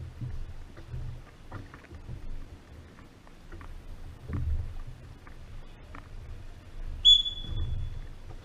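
Oar strokes of a Venetian rowing boat: scattered knocks and water sounds over a low rumble. About seven seconds in comes a short, high whistle-like tone lasting about a second, the loudest sound.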